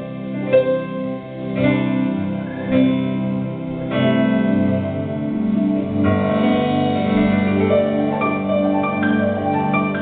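Stage keyboard played solo: a slow instrumental piece of sustained chords under a melody, with a new chord struck every second or two.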